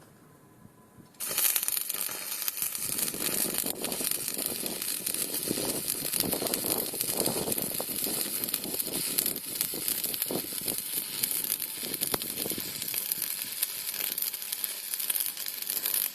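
Electric arc welding, a bolt being welded onto steel: a steady, dense crackle that starts about a second in and cuts off abruptly at the end.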